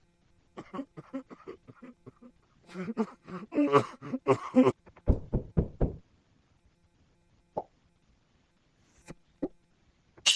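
A run of short funny sound effects: quick pops and knocks, some with a pitched squeaky tone, then several low thuds about five seconds in, then a few scattered single clicks.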